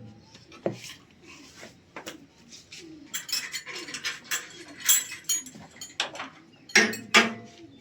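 Irregular metallic clinks and taps of hand tools on metal, coming thicker and louder about halfway through, with two sharp knocks near the end.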